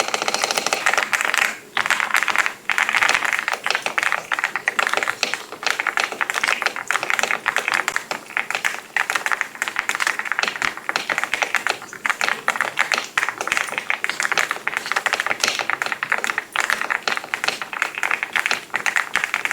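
Fast typing on a mechanical keyboard fitted with Ultraequip Emerald keycaps: a dense, continuous run of keystroke clacks, broken by two brief pauses a couple of seconds in.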